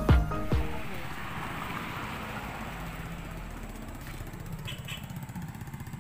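Electronic music with a steady beat cuts off within the first second, leaving road traffic: a motor vehicle's engine running and slowly fading away.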